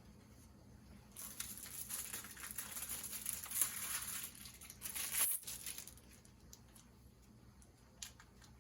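Crinkling of an MRE's plastic and foil packaging as it is handled and opened, starting about a second in and lasting about five seconds.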